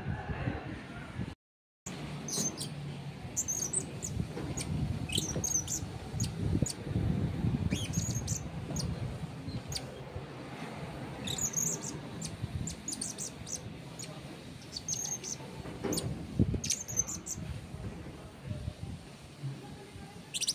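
Blue-crowned hanging parrot chattering: many short, high-pitched chirps and squeaks in loose bursts, over a low background rumble.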